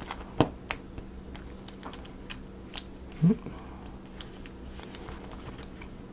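Scattered sharp clicks and taps of laser-cut wooden model-kit pieces being handled and pushed into place, over a low steady hum.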